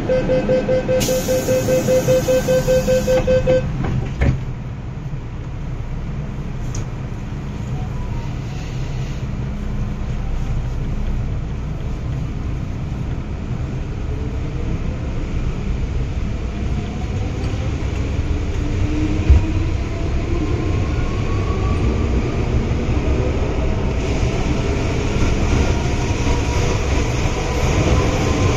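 MTR Island Line M-Train door-closing warning: a rapid beeping tone for about three and a half seconds, then the doors thump shut. The train then pulls away with a low running rumble and a traction motor whine rising in pitch as it speeds up.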